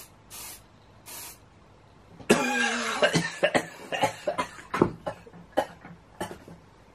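Two short hissing puffs from a bear-spray (pepper spray) canister, then about two seconds in a man breaks into a long choking cough followed by a string of short, harsh coughs that thin out toward the end: a coughing fit from breathing in the pepper spray.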